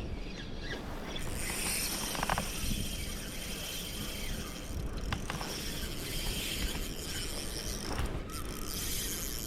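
A fishing reel being wound in, a steady mechanical whirring that breaks off briefly around five and eight seconds in.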